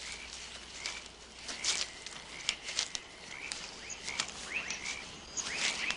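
Night-time woodland ambience of small frogs calling with short rising chirps, over a low hiss, with scattered brief rustles and snaps in the undergrowth.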